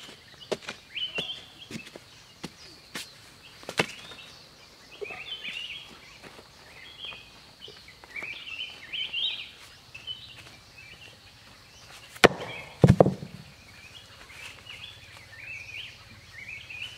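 A wooden digging stick strikes and scrapes into packed forest soil with a series of sharp knocks in the first few seconds. Small birds chirp and twitter throughout, and two heavy thumps come about three quarters of the way through.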